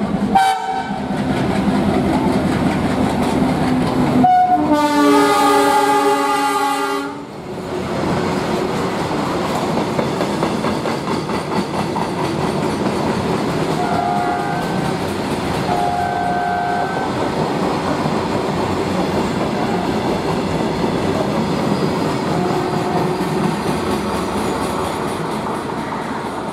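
Indian Railways WDM-3A diesel locomotive, with its ALCO-type 16-cylinder diesel engine, passing and drawing away while hauling a works train, its wheels clattering over the rail joints. About four seconds in it sounds its horn once, a loud chord lasting about two and a half seconds.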